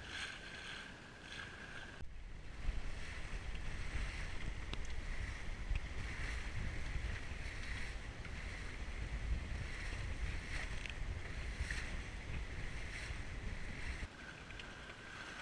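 Water rushing and splashing along the hull of a small sailboat under way, with wind buffeting the microphone. The sound changes abruptly about two seconds in and again near the end, getting heavier in between.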